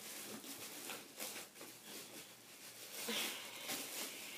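Plastic wrapping crinkling and rustling as it is pulled off by hand, with a few louder crackles.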